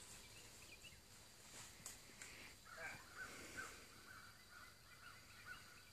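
Near silence in woodland, with a few faint clicks early and faint repeated chirping animal calls from about halfway through.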